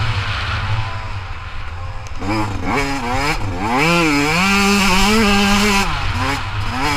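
Yamaha two-stroke dirt bike engine under way, revving up and down with the throttle: nearly shut off for about the first two seconds, then a few quick blips, a long pull from about four seconds in, and easing off near the end. Wind rumbles on the microphone underneath.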